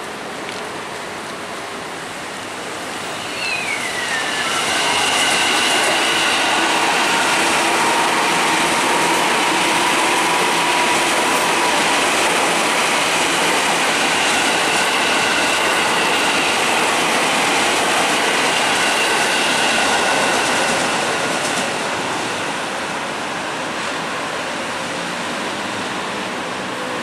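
KRL Commuter Line electric train passing close by: its running noise swells about four seconds in, holds loud with several steady high whining tones over the rumble, and eases off after about twenty seconds. A short high tone slides down just before it swells.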